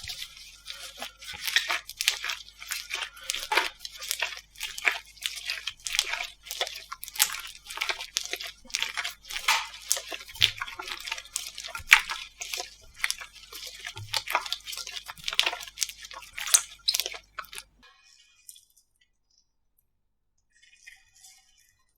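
Slime being squeezed and worked by hand: a dense run of sticky crackles and pops. It cuts off a few seconds before the end, leaving only a few faint clicks.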